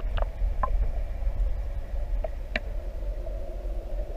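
Underwater sound picked up by a submerged camera: a steady low rumble of water against the housing, a faint steady hum, and a few scattered sharp clicks.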